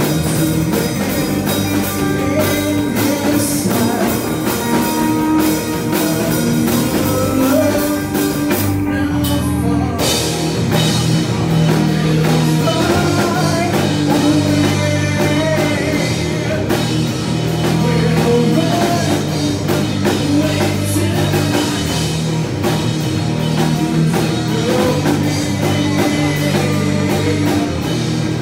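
Live rock band playing through a bar PA: distorted electric guitars, bass and drum kit, with a male singer. The high end drops away briefly about nine seconds in before the full band comes back in.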